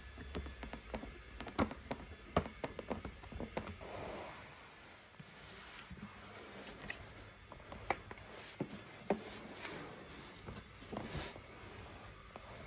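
Handling noises: irregular small clicks and ticks, thickest in the first few seconds, with brief rubbing and rustling sounds scattered through the rest.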